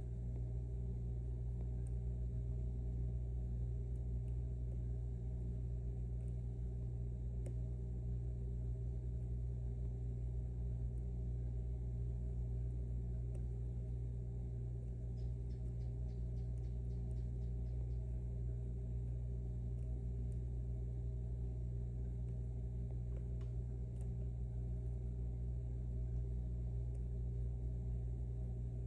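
Steady low electrical hum, with a few faint clicks of a lock pick working the pins inside a lock, including a short run of light ticks about halfway through.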